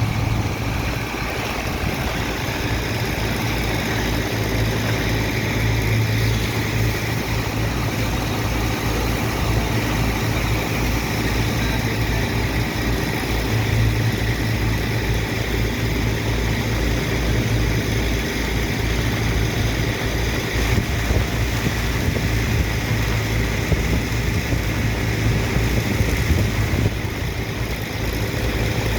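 Large engine of a sand-unloading dredger running steadily: a deep hum with a fast low pulsing, over a constant rushing noise.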